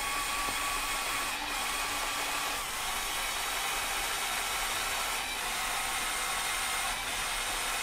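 Electric motors of a LEGO Technic Control+ Liebherr R9800 excavator model running together to drive the boom and bucket, a steady whir of small geared motors and actuators with slight shifts in pitch along the way, stopping just before the end.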